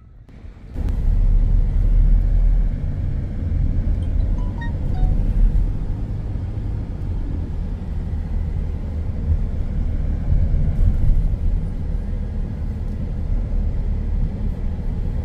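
Car driving along a town road, heard from inside the cabin: a steady low rumble of engine and tyres that starts suddenly about a second in.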